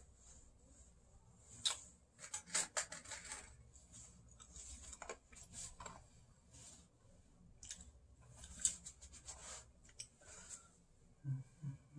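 Faint, irregular clicks and rustling over a low hiss, with a brief low-pitched sound near the end.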